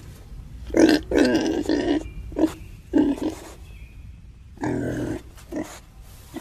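Young pigs grunting: a run of short and longer low grunts, with a brief pause about four seconds in.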